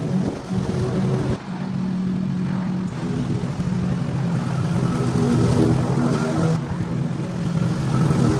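A small petrol engine running steadily, its pitch jumping abruptly about a second and a half in, about three seconds in, and again around six and a half seconds.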